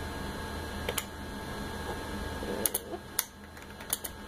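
Keys on an ultrasound machine's console keyboard clicking as a label is typed on the scan: a single click about a second in, then a quick run of clicks near the end, over a steady low hum.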